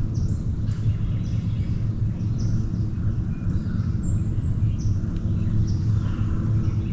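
A steady low engine drone, with short high bird chirps over it.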